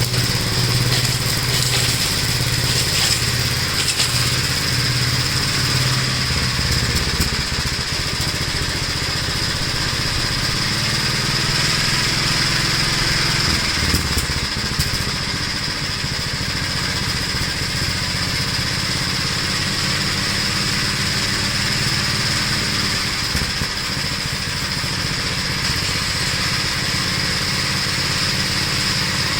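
A 1969 Gravely walk-behind tractor's single-cylinder engine running steadily while mulching leaves. Its low note shifts twice.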